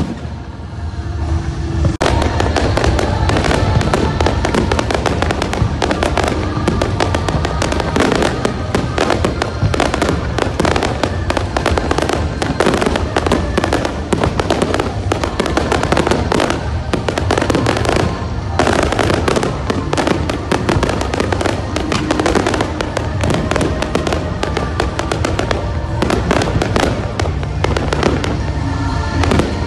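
Fireworks display: a dense, rapid run of bangs and crackles. It sets in sharply about two seconds in after a quieter moment and carries on without a break.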